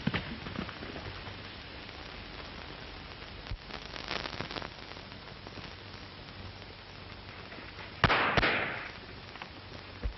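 Scuffling knocks and thumps over the hiss of an old film soundtrack, then about eight seconds in a loud gunshot crack with a short ringing tail, followed closely by a second, fainter shot.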